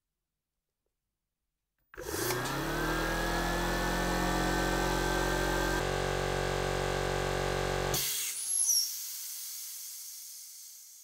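Stahlwerk brushless air compressor starting about two seconds in, its motor spinning up with a rising whine and then running steadily as the tank pressure builds to its 1 bar setting. About eight seconds in the motor cuts off and air is released with a hiss and a brief whistle that fades away.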